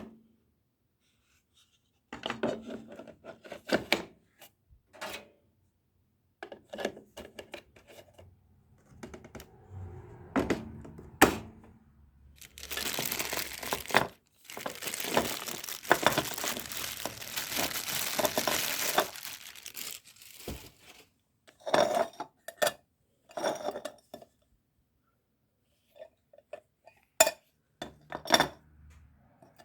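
An appliance and its parts being unpacked and handled: scattered knocks and clinks of parts, with a long stretch of packaging tearing and crinkling near the middle.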